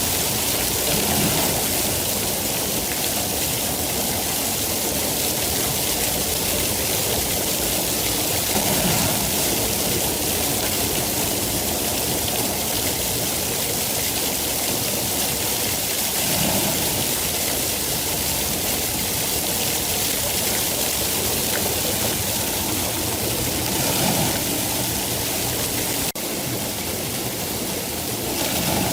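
Steady rainfall, a dense continuous hiss of falling rain with gentle swells about every seven to eight seconds. Near the end the level dips suddenly and stays slightly lower.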